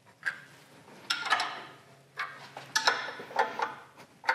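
Steel clamping parts (a wide flat bar, step blocks and toe clamps) clinking and knocking against the milling machine's table as they are set in place: several sharp metallic clicks and knocks with short ringing.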